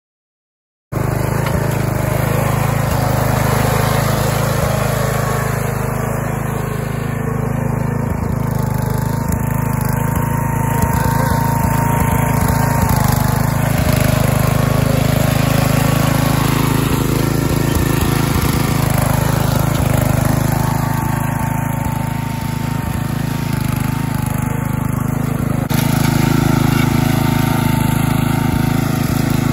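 Ariens riding mower engine running steadily, with a wavering whine coming and going twice.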